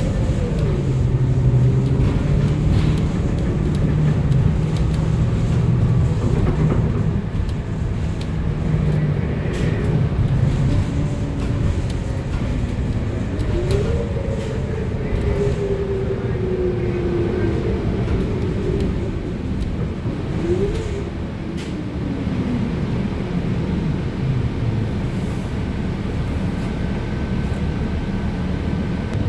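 A 2025 Gillig BRT+CNG 40-foot transit bus under way, heard from inside the cabin: its natural-gas engine and drivetrain run over a steady low drone, with a whine that rises as the bus speeds up and falls as it slows, several times over.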